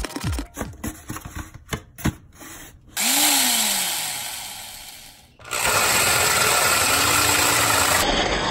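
Corded electric drill: about three seconds in it is triggered briefly and winds down with a falling pitch, then it runs steadily as a spade bit bores a hole through the side of a galvanized steel bucket.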